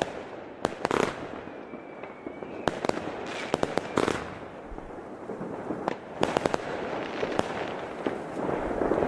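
A 25 mm firework compound cake firing its shots: groups of sharp bangs from the bursting effects, over continuous crackling.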